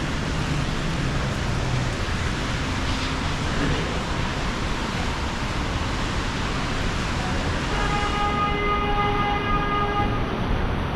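Steady rain and city street traffic noise washing over the microphone. From about eight seconds in, a steady pitched tone with overtones sounds for about two and a half seconds.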